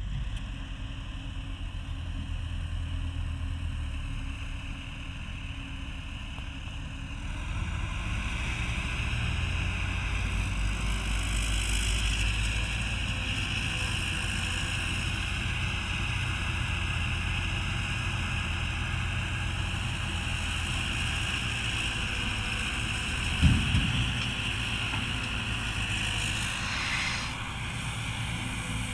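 Caterpillar 312B tracked excavator's diesel engine running under working load while it digs and swings buckets of soil, with a steady high whine over the engine rumble. One heavy thump stands out late on.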